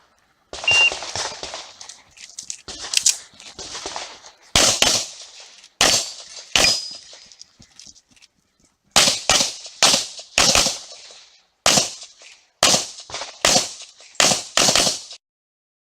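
Semi-automatic handgun fired in rapid succession through an IPSC practical-shooting stage, about seventeen sharp shots in singles and quick pairs. There is a pause of about two seconds past the middle before a faster string resumes.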